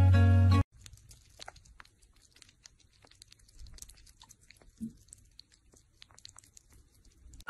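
Strummed acoustic guitar music that cuts off under a second in, then sugar gliders licking and eating from a small plastic cup: faint, quick, irregular mouth clicks and smacks.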